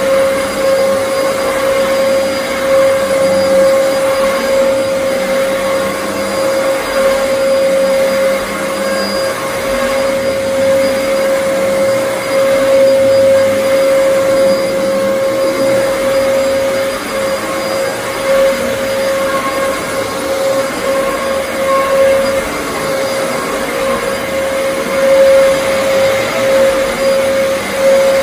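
Dyson DC14 All Floors bagless upright vacuum cleaner running: a steady high motor whine over the rush of air, its level wavering slightly.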